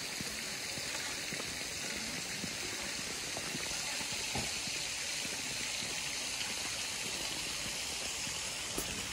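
Flowing water: a steady, even rush, like a stream or small spillway running nearby.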